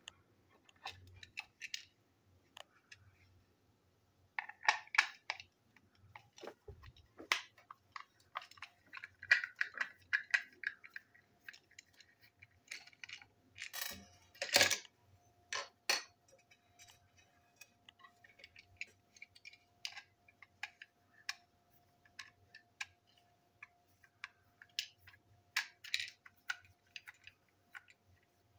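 Small clicks, taps and clatter of a plastic toy train being taken apart with a small screwdriver: parts and screws handled and set down on a hard table, with a cluster of louder knocks about halfway through.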